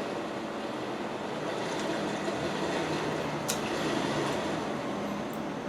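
Steady noise of a vehicle passing outside, heard through an open window, with a sharp click about three and a half seconds in.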